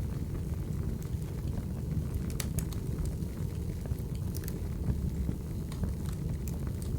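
Burning firewood: a steady low rumble of the fire with irregular sharp crackles and pops from the logs.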